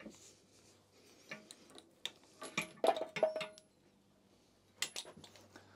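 Tools clinking and tapping against metal while the spark plug is worked out of an old outboard motor, in scattered knocks with the loudest about three seconds in, one of them ringing briefly, and another knock near the end.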